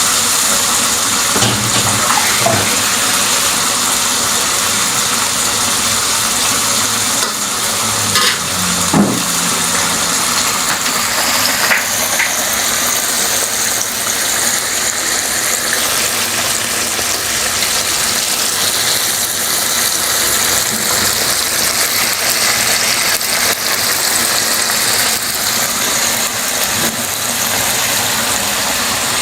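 Chicken frying in a pan with a steady sizzle, with a few faint utensil clicks from stirring.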